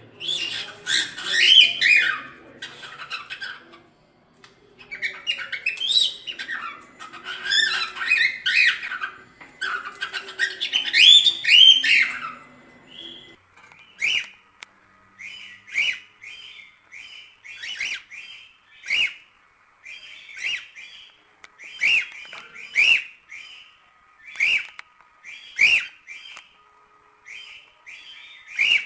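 Cockatiel singing: a dense, warbling, chattering song for about twelve seconds, then after a brief pause a run of short repeated chirps, about one or two a second.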